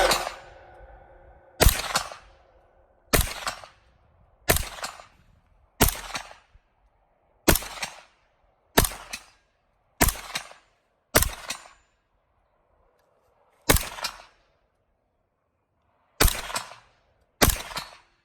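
Kalashnikov USA KP-9 9mm pistol with an RRD-2C muzzle brake fired unsuppressed in single shots, about eleven of them at uneven gaps of one to two and a half seconds. Each shot has a short echo.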